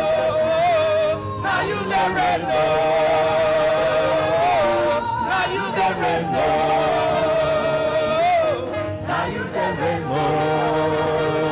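Church choir singing a worship chorus, with women's voices leading on long, slightly wavering held notes.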